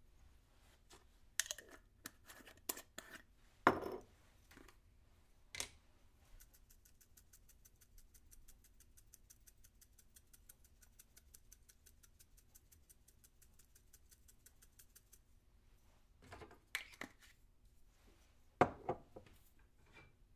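Kitchen handling sounds: scattered clinks and knocks of utensils and dishes, then for about nine seconds a fast, even ticking of about seven ticks a second, then more knocks near the end.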